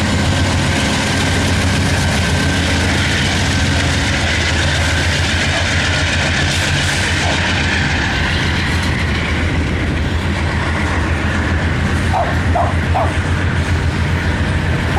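A freight train's cars rolling steadily past, the wheels clicking over the rail joints. A dog barks three times near the end.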